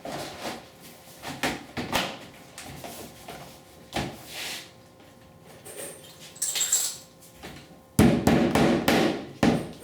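Hard plastic knocks and clatter from vinyl siding pieces being handled and worked: scattered single knocks, then a louder run of rapid knocking and rattling about eight seconds in.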